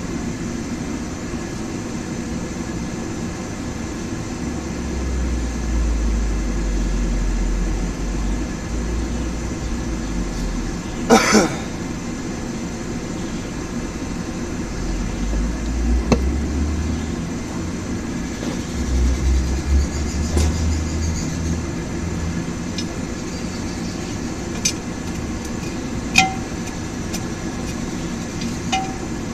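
Blacksmith's forge running with a steady rushing noise while the steel heats. A few scattered metal clinks cut through it, the loudest a ringing clank about eleven seconds in.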